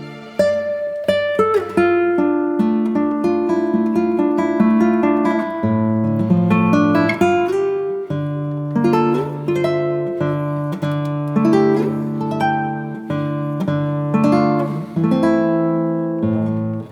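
Background music led by a plucked acoustic guitar, with quick picked notes over held bass tones.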